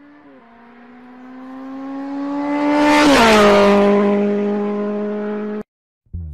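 Electric treadmill motor whining steadily and growing louder. About three seconds in, its pitch drops slightly, then it holds and cuts off suddenly near the end.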